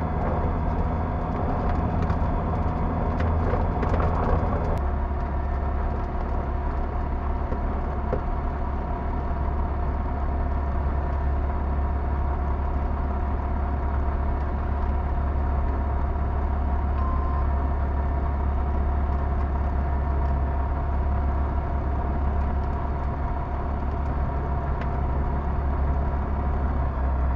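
Pipistrel Virus light aircraft's Rotax 912 four-cylinder engine and propeller running at low power while taxiing, heard from inside the cockpit. The engine note drops slightly about five seconds in, then stays steady.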